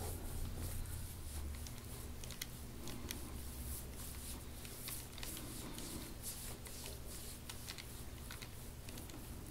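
Faint, irregular crackling and rubbing from a forearm pressing and working into a patient's bare back during deep-tissue massage, over a low steady hum.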